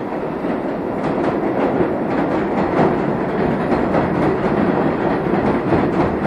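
R33 subway cars of the Train of Many Colors nostalgia train running past on the elevated express track. The wheels make a steady rumble on the rails with a stream of clicks over the rail joints, getting a little louder about a second in.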